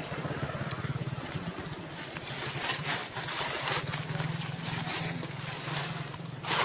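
Low, steady hum of a small engine running, with brief rustling scrapes about three seconds in and again near the end.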